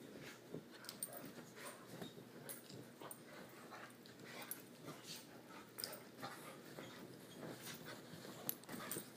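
Golden retriever puppy playing in bed blankets: irregular, quiet rustling and scratching of the covers as she digs and rolls, with the puppy's own soft noises mixed in.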